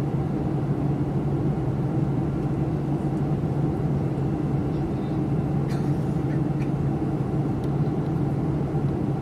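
Steady cabin drone of a commercial passenger airliner in flight: engine and airflow noise with a constant low hum. A couple of faint clicks sound a little past the middle.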